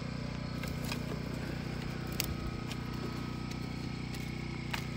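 Portable generator running steadily at a constant speed, with a few light clicks and snaps over it.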